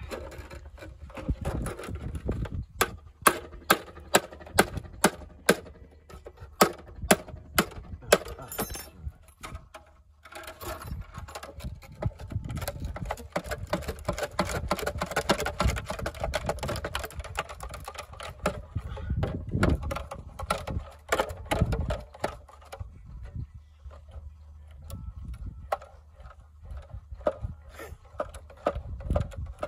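A rusty tin can being cut open with a knife and pried into a flat sheet: sharp metallic knocks about two a second for the first several seconds, then a stretch of steady scraping and crinkling of the thin metal, with quieter scattered clicks near the end.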